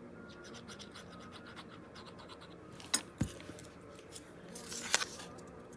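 Paper scratching and rustling as the nozzle of a squeeze bottle of Bearly Art glue scrapes along a small paper hinge, with fine ticking at first. A couple of sharp taps come about three seconds in, and a louder rustle of the paper hinge being handled ends in a click near five seconds.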